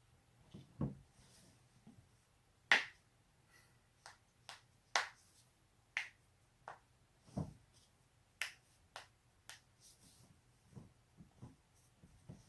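Neck and back joints cracking: more than a dozen sharp pops and cracks at irregular intervals, the loudest about three seconds in.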